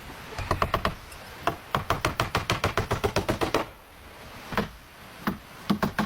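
Quick hammer blows on wood, in fast runs of about seven strikes a second, a pause, then a few single blows.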